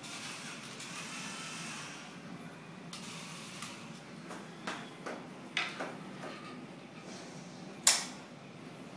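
A small toy radio-controlled car's electric motor whirring as it drives over a tiled floor, followed by a few light clicks and knocks. One sharp, loud knock comes near the end.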